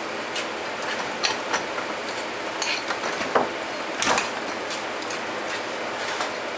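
A metal fork clinking and scraping against a ceramic baking dish as cooked potatoes are crushed up, in irregular light taps with sharper clinks just over three and about four seconds in. A steady hiss lies underneath.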